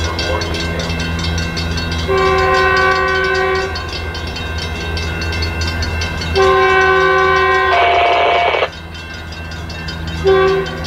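Approaching Metrolink commuter train's diesel locomotive horn sounding a multi-note chord: two long blasts, then a short one near the end, the start of the long-long-short-long grade-crossing signal. The second long blast ends in a brief burst of hiss, all over a steady low rumble.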